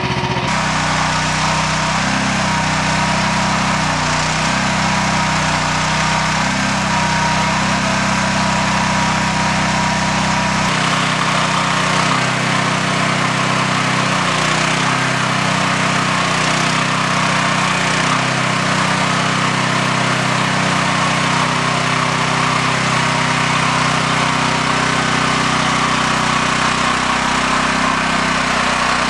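The small air-cooled gasoline engine of a Scorpion 900 mini excavator running steadily under load while the backhoe digs, its note shifting about ten seconds in.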